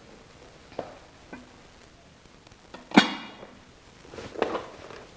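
A few faint light knocks of things being handled on a kitchen counter, with one sharp knock about three seconds in that rings briefly.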